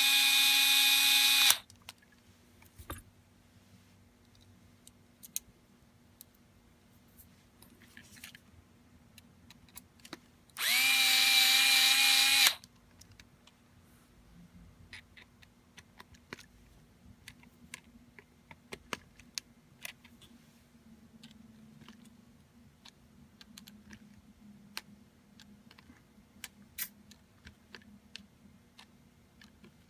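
Small electric screwdriver running in two short bursts, about a second and a half and then about two seconds, driving screws in; light clicks of small parts being handled in between.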